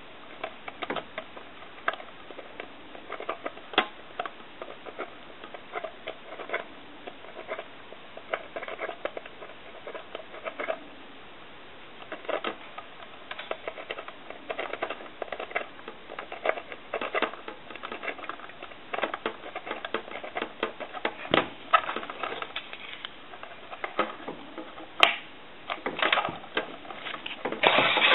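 Irregular light clicks, taps and scratching from small hand tools and parts being handled during bench repair work, with a few sharper clicks in the second half and a busier stretch near the end.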